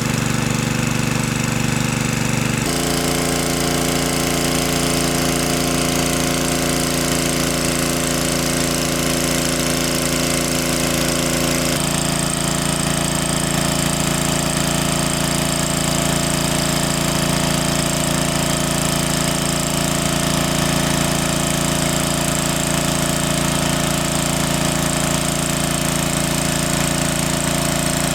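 Small engine running steadily with a fast, chugging pulse; its pitch steps suddenly twice, about two and a half seconds in and again about twelve seconds in.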